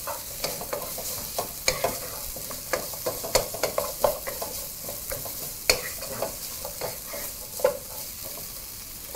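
Sliced onions, garlic and carrot strips frying with a steady sizzle in a nonstick pot, stirred with a wooden spoon that scrapes and knocks against the pot many times.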